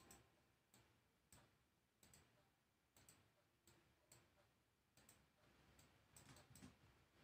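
Near silence with faint computer mouse clicks, roughly one a second and a few close together near the end, as anchor points are placed with the pen tool.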